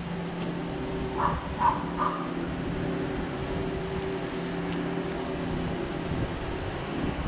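A steady low mechanical hum with several pitched tones. A dog barks three times in quick succession about a second in.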